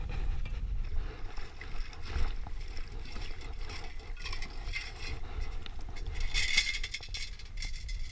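Stainless steel sand scoop worked in shallow lake water: water sloshing and scraping as it digs into the bottom, with a louder rush of water draining through its holes about six and a half seconds in as a scoopful is lifted. A low wind rumble on the microphone runs underneath.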